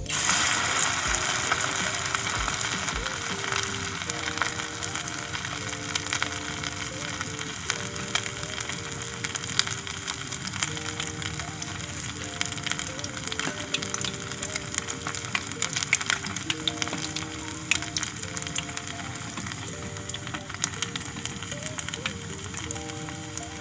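Chicken nuggets frying in hot oil: a sizzle full of sharp crackles and pops that starts suddenly and keeps going.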